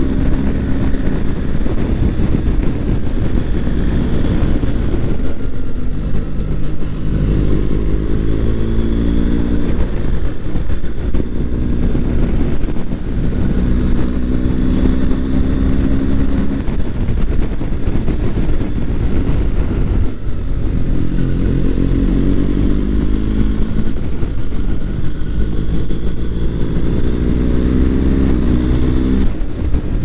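BMW R1250 GS boxer-twin engine running under way, rising in pitch several times as the bike accelerates out of bends and dropping back each time the throttle eases or the gear changes.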